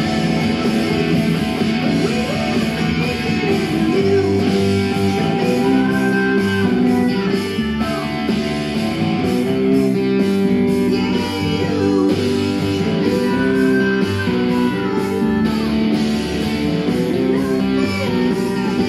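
Stratocaster-style electric guitar playing a melody, with several notes bent up and back down, over steady lower notes.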